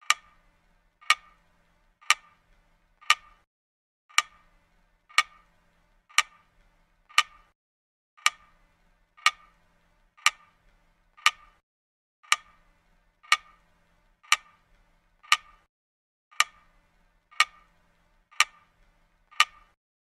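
A clock-tick sound effect: sharp, evenly spaced ticks about once a second, each with a short ringing tail.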